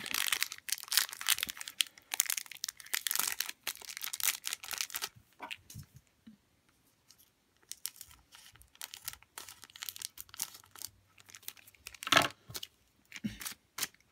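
Foil Pokémon card booster-pack wrapper crinkling and crackling as it is handled and cut open with scissors. The crackling is dense for the first few seconds, then sparser, with one loud crackle near the end.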